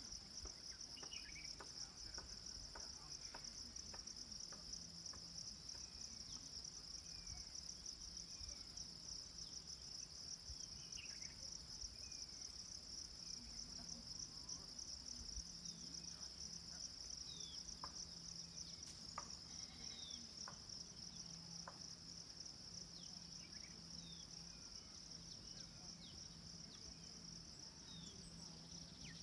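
Steady, high-pitched insect chorus: a continuous, finely pulsing buzz, with scattered short chirps over it.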